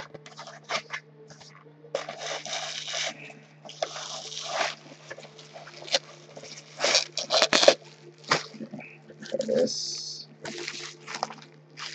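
A cardboard Priority Mail box being opened and handled, with bursts of rustling and crinkling from the packaging and bubble wrap and scattered knocks and scrapes, over a steady low hum.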